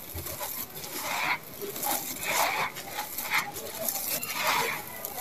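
Sand-cement bars crushed by hand, the gritty sand and gravel crumbling and pouring down onto a pile in repeated scratchy bursts about once a second.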